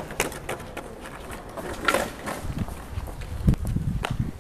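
Skateboard rolling on asphalt: a series of sharp clacks and knocks from the board and wheels, with a low rumble of the wheels on the pavement in the second half.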